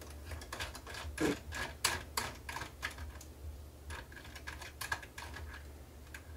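Light, irregular clicking and ticking of a small screwdriver being turned by hand to undo small screws, over a low steady hum.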